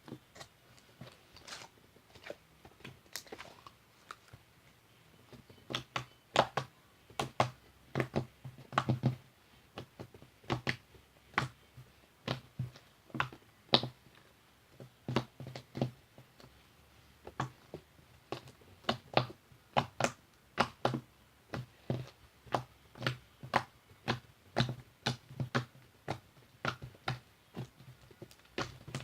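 Slime being squeezed and kneaded by hand, giving a long run of short wet clicks and pops a few times a second, sparser for the first few seconds and then steady.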